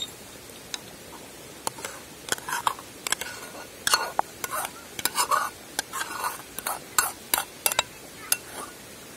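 A metal ladle scraping and knocking against a stainless steel bowl as mashed meat and beans are scooped out, in an irregular run of quick scrapes and clinks that starts about two seconds in and stops near the end.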